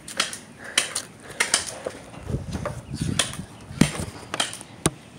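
Handling noise from a phone being moved and positioned on a wooden railing: scattered sharp clicks and knocks, with low rubbing and rustling around the middle.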